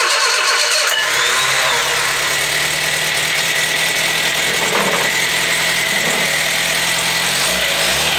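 Freshly rebuilt carburetted petrol engine catching about a second in and then running steadily on its first startup, with the choke on.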